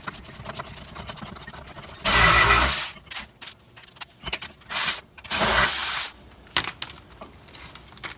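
A Milwaukee cordless power tool spinning out the 14 mm rear brake caliper bracket bolts of a 2013 Hyundai Elantra. It runs in two bursts of about a second and one shorter one, with light metallic clicks and clinks between them.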